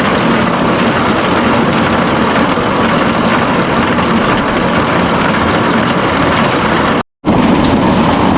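Engine running steadily at a constant speed, with loud, even mechanical noise. It cuts out for a split second about seven seconds in.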